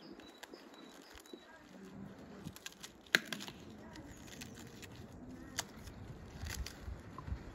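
Garlic being peeled by hand with a small knife over a wooden board: light clicks and crackling of the papery skin, the sharpest click about three seconds in. Faint short high chirps at the start.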